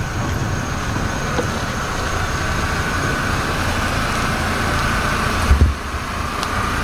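A car driving slowly past, its engine running and tyres rolling on the road, with a brief low thump about five and a half seconds in.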